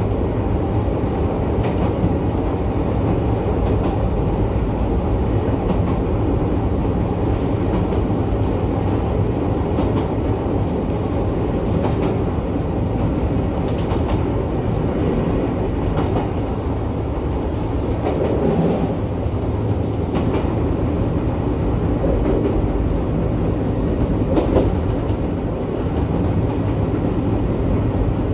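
Electric train running along the track, heard from inside the front car: a steady rumble of wheels and running gear, with occasional clacks as the wheels pass over rail joints.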